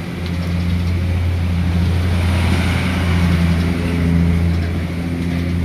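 Road traffic: a steady low engine rumble, swelling with a broad hiss as a vehicle passes about two to four seconds in.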